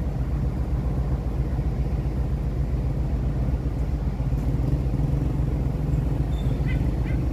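Motorbike engine running at a steady speed while riding, a low, even pulsing drone.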